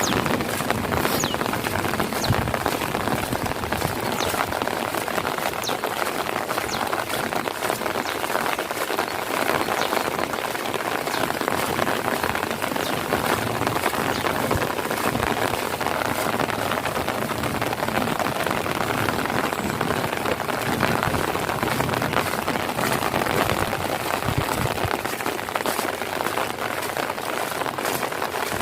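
Steady rain falling and pattering on surfaces, a constant hiss dotted with many small drop hits.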